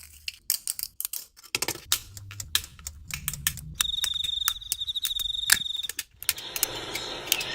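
Rapid, irregular clicking and tapping of small hard objects, like typing. A steady high-pitched tone with a slight warble sounds for about two seconds in the middle, and a hiss comes in near the end.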